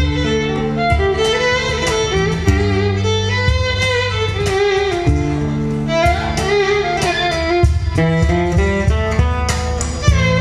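Live instrumental trio: a violin carries the melody over a strummed acoustic guitar, with a cajón beating the rhythm.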